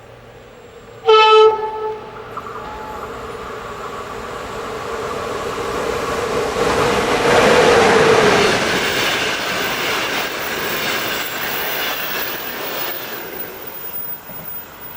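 Train horn sounding one short blast about a second in, followed by a train approaching and passing. The train's running noise grows louder to a peak around the middle, while a steady hum drops in pitch as the locomotive goes by. Wheels clatter over the rail joints as the cars pass, and the sound cuts off suddenly at the end.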